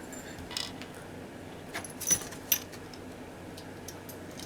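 A few light clicks and clinks of small hard parts being handled, scattered and irregular, with the sharpest about two seconds in, over a faint steady low hum.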